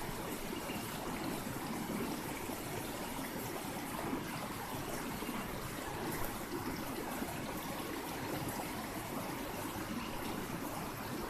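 Steady rush of a shallow river's water flowing.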